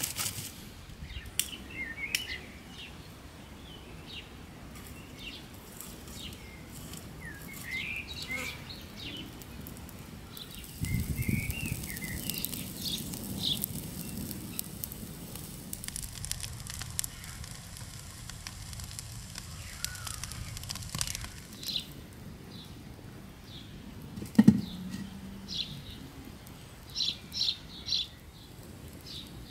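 Dry-twig campfire in a cinder-block hearth crackling, busiest from about a third of the way in, with birds chirping throughout. One sharp knock about two-thirds through, and a few lighter clicks near the end.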